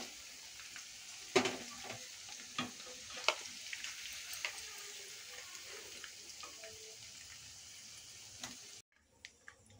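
Paneer pieces frying in hot mustard oil in a kadhai: a faint, steady sizzle with a few sharp utensil taps against the pan. The sizzle cuts off suddenly near the end.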